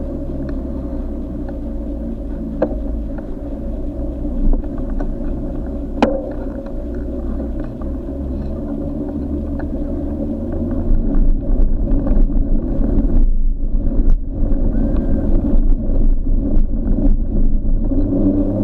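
Muffled low rumble of wind and movement noise on an action camera carried along, with a few faint steady tones and scattered light ticks; the rumble grows stronger and gustier past the middle.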